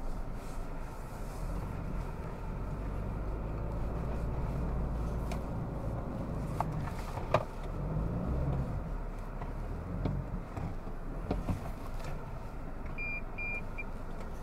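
Toyota Hilux's four-cylinder diesel engine running steadily on an off-road track, with a sharp knock about halfway through. Three short high beeps sound near the end.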